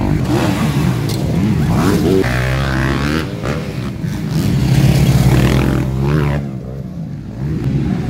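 Motocross dirt bike engines revving, rising and falling in pitch, then holding a steady high-revving tone for several seconds.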